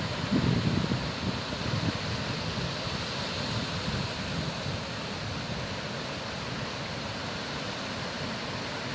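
Sea waves washing in a steady rush of surf, with wind buffeting the microphone during the first couple of seconds.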